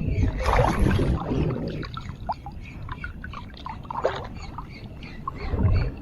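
Shallow sea water splashing and sloshing, with a louder splash in the first two seconds, followed by small drips and trickles.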